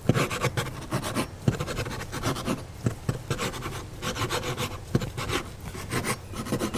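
A machete blade chopping and slicing raw chicken breast into cubes on a plastic cutting board: a quick, uneven run of knocks and scraping strokes.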